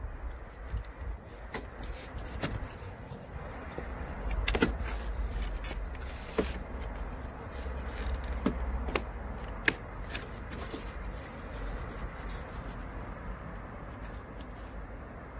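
Plastic clips and tabs of a Vauxhall Astra J's front grille snapping loose from the bumper cover as it is pulled out by hand: a series of sharp clicks with plastic scraping between them, over a low rumble.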